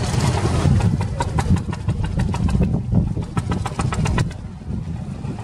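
An engine idling with a steady low rumble, typical of a moored fishing boat's engine. A quick run of sharp clicks and knocks sounds through the middle.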